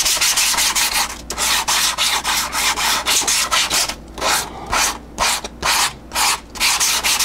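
Hand sanding with 80-grit sandpaper on the final coat of cured resin over a fiberglassed model airplane wing, scratchy back-and-forth strokes flattening the surface. The strokes run almost continuously at first, then become separate strokes about two to three a second from about four seconds in.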